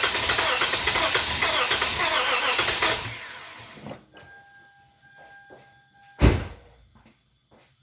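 Starter cranking the 2010 Lexus IS250's 2.5-litre V6 for about three seconds without it catching, then stopping; the owner blames a locked-up A/C compressor that won't turn. A steady tone follows, then a single loud thump about six seconds in.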